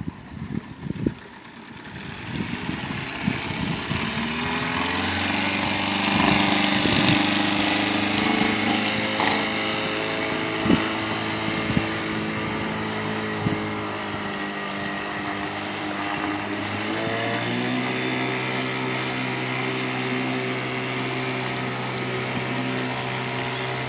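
Outboard motor driving a pontoon camper boat, running steadily over churning water. Its note rises a few seconds in as it speeds up, and steps up again about two-thirds of the way through.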